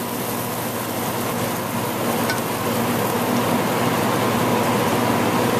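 Garlic and shallot brown butter sizzling steadily in a hot sauté pan as it is spooned over seared fish, over a low steady hum of kitchen equipment.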